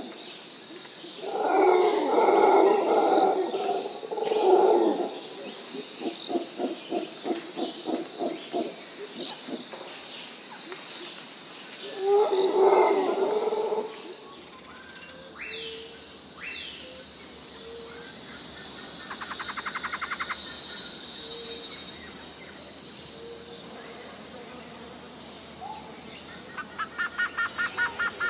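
Several loud, low animal calls in the first half, with a run of quick pulsing calls between them. After that come bird chirps, short trills and whistles over a faint steady outdoor hiss.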